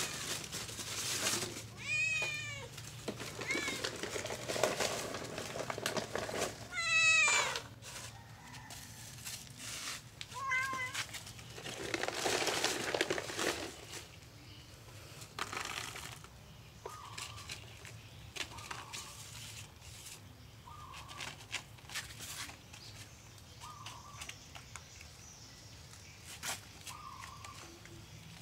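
Tabby cat meowing four times in the first half, the loudest call about seven seconds in, with rustling between the calls. In the second half there are quieter scattered clicks as the cat crunches dry kibble.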